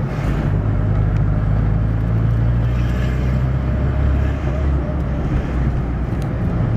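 Fiat Uno 60S's 1.1-litre four-cylinder engine and road noise heard from inside the cabin while driving: a steady low drone that swells about half a second in. The engine has one cylinder not firing, which makes it misfire.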